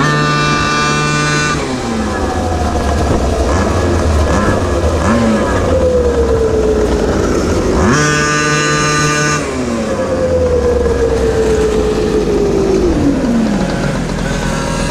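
GoQuad's small two-stroke engine, revved hard twice: at the start and again about eight seconds in, each burst holding a steady high note for about a second and a half. After each burst the engine note falls slowly in pitch over several seconds as the quad rolls along.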